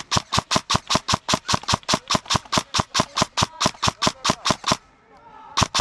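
Airsoft gun firing a rapid, even string of shots, about six a second, stopping briefly near the end and then firing again.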